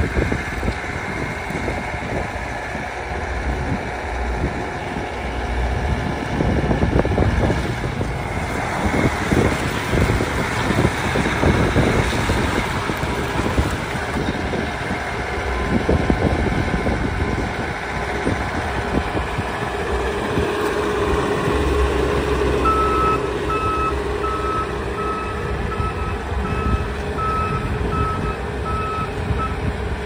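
Bobcat T590 compact track loader's diesel engine running as the machine moves, a little louder from about eight seconds in. In the last seven seconds its backup alarm beeps steadily, a bit more than once a second.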